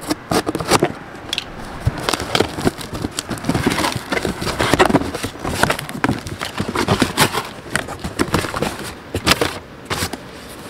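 Cardboard box being cut and torn open: a utility knife slitting packing tape, then cardboard flaps and tape ripping and crackling in short, irregular strokes.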